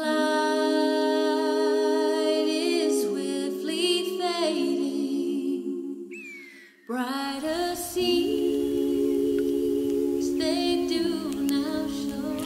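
A cappella vocal harmony: voices hold long chords without words. The chord shifts about three seconds in and fades out near six seconds, and a new held chord starts about a second later.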